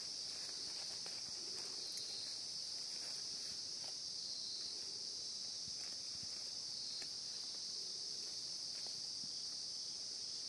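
Steady high-pitched chorus of insects, with faint rustles and snaps of weeds being pulled up by hand and a small click about two seconds in.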